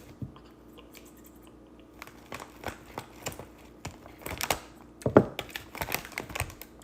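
Irregular small clicks, taps and rustles of hands handling food and objects at a table, with a louder knock about five seconds in.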